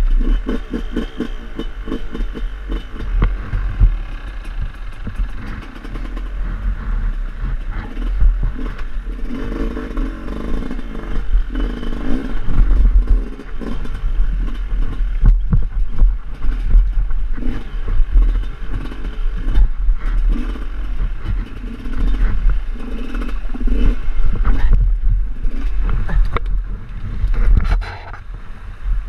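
GasGas enduro motorcycle's engine revving up and down unevenly as the bike is ridden slowly over rocks in a stream bed, with repeated knocks as the bike strikes the rocks.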